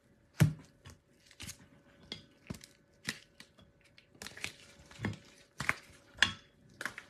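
Rigid plastic card holders clicking and clacking as they are handled, picked off a stack and set down. The clicks come at irregular intervals, the loudest about half a second in and several more close together near the end.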